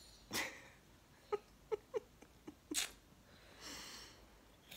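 A toddler eating soup from a spoon: two short breathy slurps, one just after the start and one near three seconds in, with a quick run of four or five tiny hummed mouth sounds between them and a soft breath near the end.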